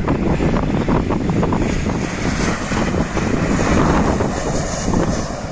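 Airliner engines running, swelling to a peak about four seconds in, heard through heavy wind buffeting on the microphone.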